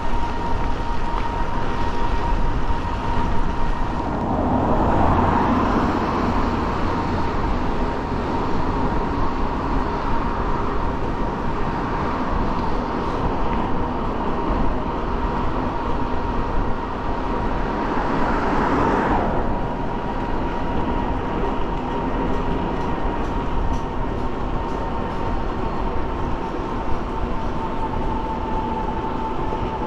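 Wind and tyre hiss on wet pavement from a moving e-bike, with a steady high whine from its hub motor running under pedal assist. Two louder swells of road hiss come through, about five seconds in and again around nineteen seconds.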